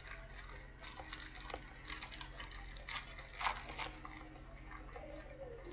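Crinkling and rustling of trading-card pack wrappers and cards being handled, as packs are opened one after another; the loudest crinkle comes a little past three seconds in.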